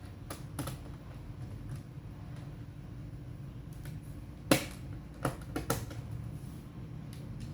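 Sharp plastic clicks and taps from handling the laptop's case and parts: a few light ones, then a loud click about four and a half seconds in followed by three quicker ones, over a steady low hum.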